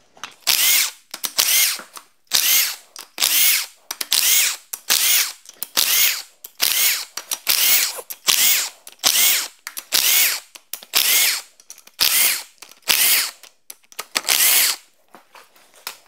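Cordless drill-driver spinning out the camshaft cap bolts on a Hyundai Elantra engine, in many short whirs of about half a second each, one or two a second, with brief pauses between.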